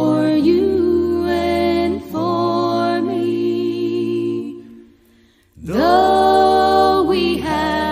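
A hymn sung by several voices in harmony over a low held bass, in long sustained phrases, with a brief pause between phrases about five seconds in.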